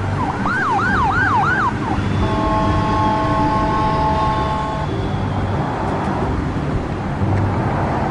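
An emergency-vehicle siren sweeping quickly up and down about five times. It is followed by a steady multi-note horn held for a couple of seconds, over continuous road-traffic noise.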